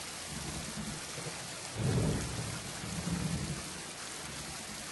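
Steady rain hissing with low rolls of thunder that swell and fade, the strongest about two seconds in.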